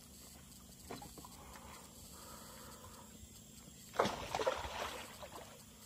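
A hooked fish thrashing and splashing at the water surface about four seconds in, for about a second.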